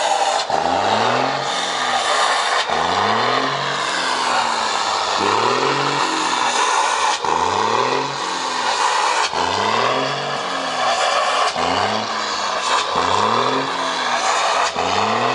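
Volkswagen 24-250 truck's diesel engine being revved over and over, the pitch rising and falling about once a second.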